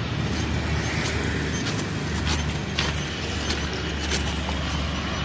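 Footsteps crunching on the gravel ballast of a railway track at a steady walking pace, over a steady low rumble.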